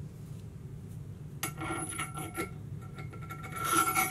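Metal-on-metal scraping as a ring is slid down a steel axle shaft by hand, in two stretches of about a second each, the second louder with a light metallic ring.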